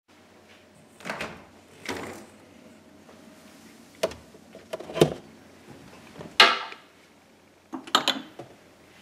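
A series of knocks and clunks from a refrigerator and a wooden kitchen cupboard being opened and handled, the loudest a little past the middle. Near the end come several quick clinks of drinking glasses on the cupboard shelf as one is taken.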